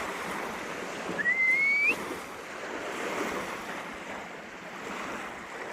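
Ocean waves breaking and washing on the shore, with wind on the microphone. About a second in there is a short, rising whistle.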